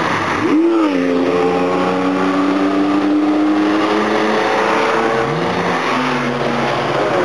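Classic racing cars driving past at speed one after another, their engines running at high revs. The engine pitch swings up and settles about half a second in, then shifts again about five seconds in, as the cars change gear and go by.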